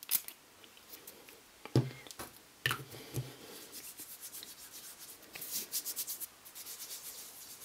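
A short hiss from a small perfume bottle's pump atomiser, then skin rubbing on skin as the perfume is rubbed into the wrists, with faint handling knocks.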